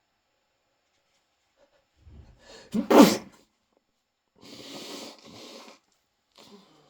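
A person sneezing with a cold: a building intake of breath, then one sharp, loud sneeze about three seconds in. It is followed by a long breathy noise a second or so later and a short faint one near the end.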